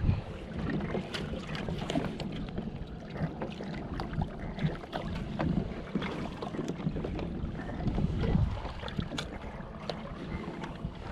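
Kayak on the water: water slapping against the hull under a steady low rumble of wind on the microphone, with scattered small knocks and clicks.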